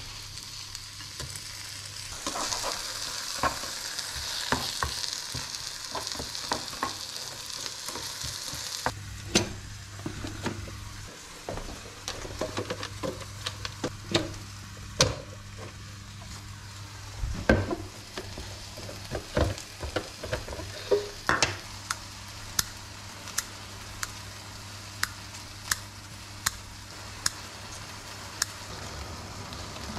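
A piece of meat, which looks like chicken breast, frying on diced onion in a pan with a steady sizzle while a turner presses it; the sizzle cuts off suddenly. Then come scattered knocks and clatter of things being handled on the counter, loudest in a cluster past the middle, and near the end short sharp clicks about once a second.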